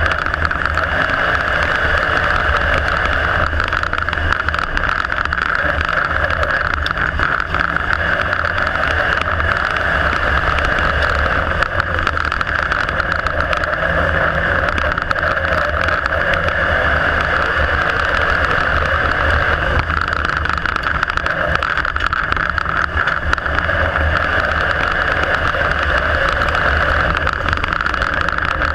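IMCA Modified dirt-track race car's V8 engine at racing speed, heard from inside the cockpit: a loud, continuous drone that swells and eases every few seconds.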